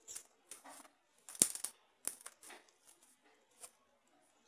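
Scissors cutting open a taped cardboard package: a series of short, sharp snips with paper rustling between them, the loudest a sharp snap about a second and a half in.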